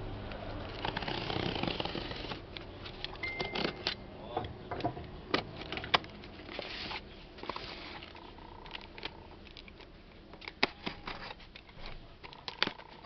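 Utility knife slicing along the packing tape on a cardboard box's seam. There is a longer scrape about a second in, then scattered sharp clicks and taps of blade and hands on the cardboard.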